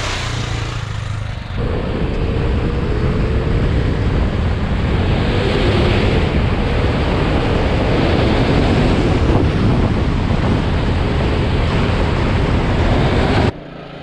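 Wind buffeting a bike-mounted camera's microphone, with the KTM 690 Enduro R's single-cylinder engine running underneath as the motorcycle rides a dirt road. The sound shifts about a second and a half in and cuts off abruptly near the end.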